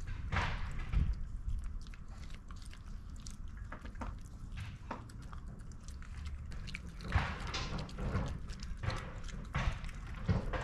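Shiba Inu nibbling and crunching a hard Honekko dog chew, with scattered clicks and short crunches, thickest near the end.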